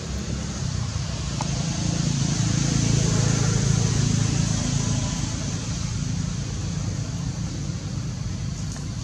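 Low rumble of a distant vehicle, swelling for a few seconds in the middle and easing off again, over a steady high hiss.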